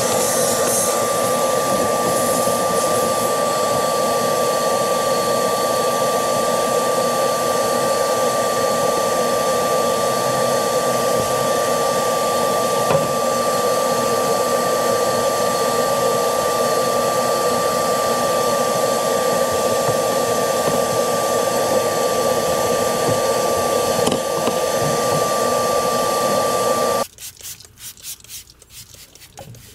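A vacuum-type motor running steadily with a high whine, switched off suddenly near the end.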